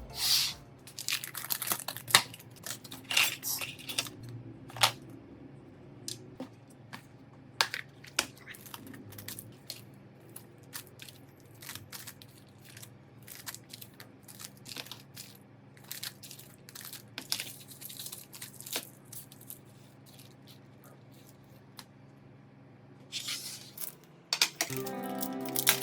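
Small hand tools clicking, tapping and scraping on an iPhone 14 Pro being repaired, in sharp irregular clicks with short pauses between them, over a steady low hum. Music comes in near the end.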